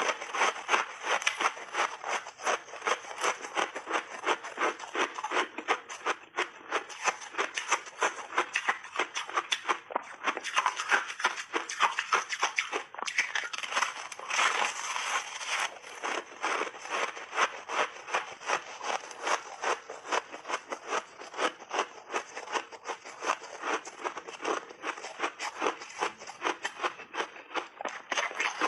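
A person chewing big bites of crunchy refrozen ice with mixed berries close to the microphone, rapid crisp crunches several a second without a break.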